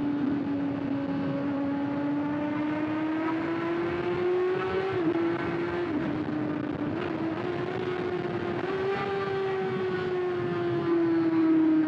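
Kawasaki ZX-6R inline-four engine running through an aftermarket SC-Project exhaust, riding at a steady high-pitched note. The pitch climbs slowly, dips briefly a few times around the middle, then eases down near the end.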